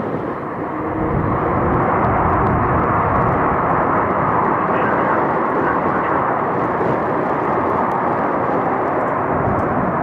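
Jet noise of a Dassault Falcon 900EX's three Honeywell TFE731 turbofans as the business jet lands close by: a loud, steady rush that swells over the first two seconds and then holds.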